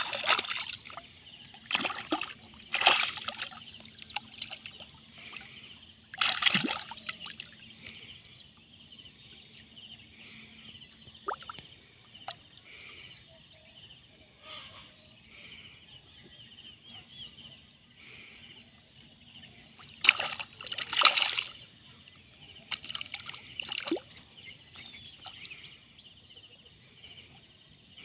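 Water splashing and sloshing in several short bursts as a fish thrashes at the surface, with the loudest bursts about six seconds in and around twenty to twenty-one seconds in.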